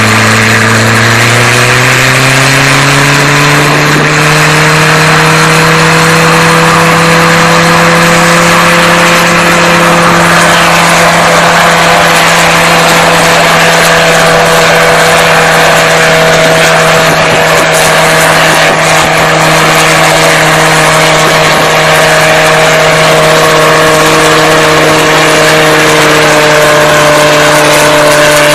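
Homemade single-seat helicopter's engine speeding up over the first few seconds, then running steadily at high revs.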